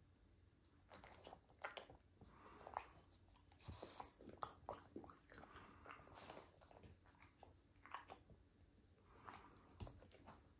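A French bulldog chewing pieces of broccoli and carrot: faint, irregular crunching and biting sounds, with a few sharper crunches scattered throughout.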